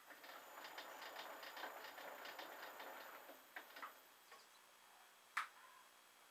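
Clarke CL500M mini lathe turning slowly during a screw-cutting pass: a faint hiss with rapid, regular ticking, about six ticks a second, for some three seconds, then it stops. A few light clicks follow, and one sharp click comes about five seconds in.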